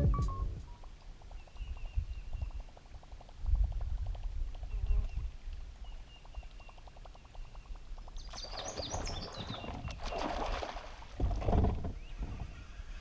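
Open-water ambience on a boat: low wind rumble and water sloshing, with faint bird chirps and a busier splashy stretch about two-thirds of the way in.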